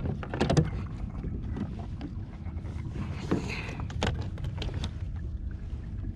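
Gear being handled on a Hobie fishing kayak: scattered clicks and knocks over a steady low rumble of wind and water on the microphone.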